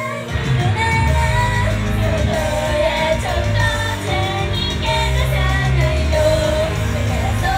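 Female idol group singing live over a loud pop-rock backing track; the heavy low end of the backing comes in strongly just after the start.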